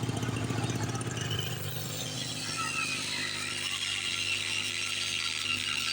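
AB-1 portable petrol generator's engine running steadily, with a faint wavering high whine above it.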